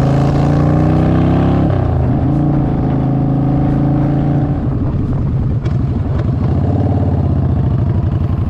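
Motorcycle engine under way, its pitch climbing as it accelerates, then dropping suddenly at a gear change about a second and a half in and holding steadier, with another slight drop in pitch a little past the middle.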